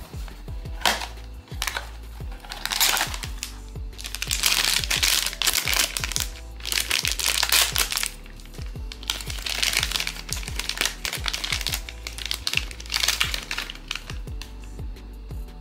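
Crinkling of a blind box's black foil bag being handled and opened, in a string of loud bursts, over steady background music.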